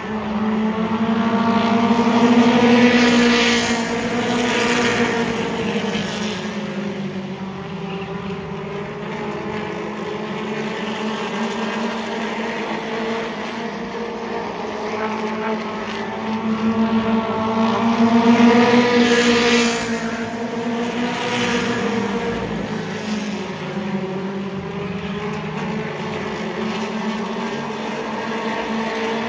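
Mini stock race cars' four-cylinder engines running at speed around the oval in a steady drone, their pitch rising and falling as they go through the turns and down the straights. The sound swells loudest twice, a couple of seconds in and again about two-thirds of the way through, as the pack passes closest.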